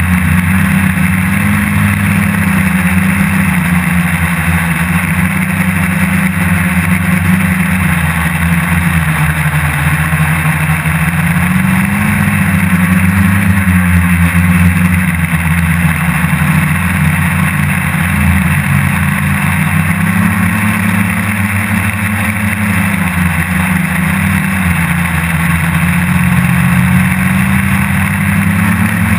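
Multirotor hexacopter's electric motors and propellers whirring, heard close up from on board, the pitch of the hum rising and falling as the throttle changes in flight.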